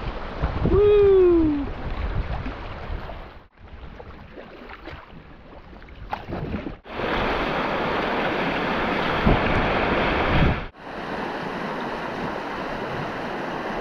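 A shout of "Woo!" about a second in, then a steady rush of river water and wind on the microphone of a camera riding on a small boat, cut into several short pieces with sudden breaks between them.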